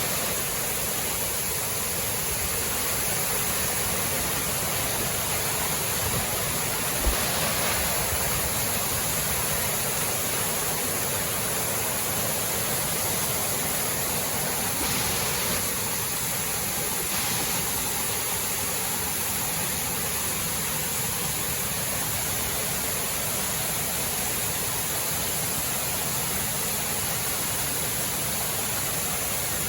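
Waterfall rushing steadily, an even roar of falling water. A brief low thump comes about a quarter of the way in.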